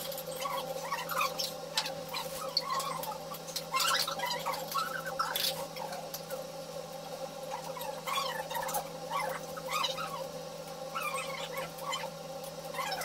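Eating utensils clicking and tapping against plates and bowls at a meal, in scattered short knocks, over a steady low hum.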